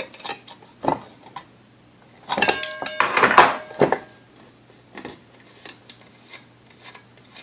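Metal tools and parts of a vintage Hamilton Beach Model D mixer clinking and clattering while a nut is worked off. A few sharp clicks come first, then a busy spell of clatter with ringing metal in the middle, then a few light taps.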